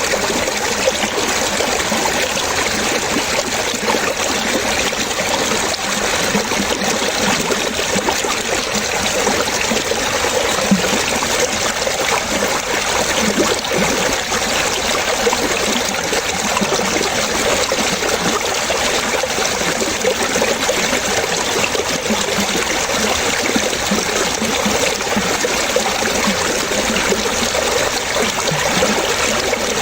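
Water trickling and splashing steadily, with frequent small low plops through it.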